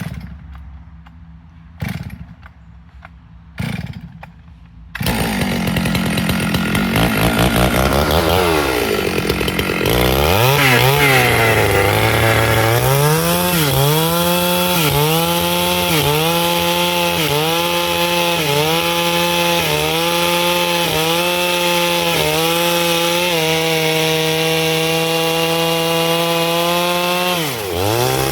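Stihl 651 chainsaw: three short bursts in the first four seconds, then the engine catches about five seconds in and runs at high revs. Its pitch dips and recovers about once a second as the chain cuts into wood, with one deeper dip near the end.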